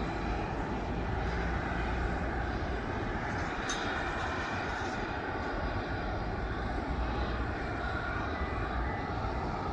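Jet aircraft engines running: a steady, even rush of noise over a low rumble.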